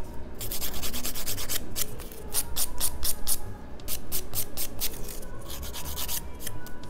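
White hand nail file rasping across a fingernail in quick back-and-forth strokes, about four to five a second, with two brief pauses, as the nail is shaped.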